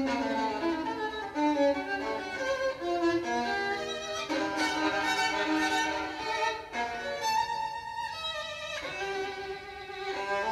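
Solo violin playing a melodic line over an orchestra, heard through a pair of stand-mounted hi-fi speakers in a room.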